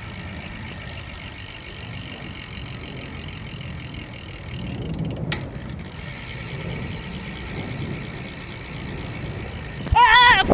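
BMX rear hub freewheeling as the back wheel is spun, a steady ticking buzz, with a sharp click about five seconds in and a short loud high-pitched squeal near the end.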